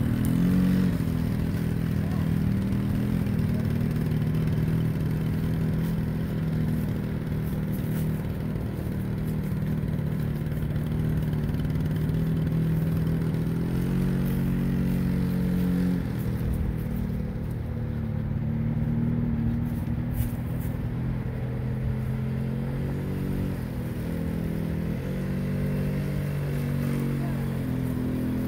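Suzuki LT50 youth quad's small two-stroke engine running at low speed while the quad is ridden, its note rising and falling with small changes of throttle.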